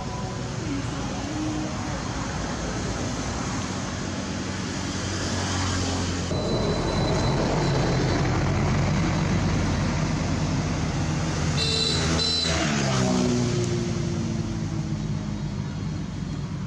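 Motor vehicle engines running nearby over steady road-traffic noise, louder from about six seconds in. Around twelve seconds a vehicle's pitch falls as it goes by, with a brief high squeal.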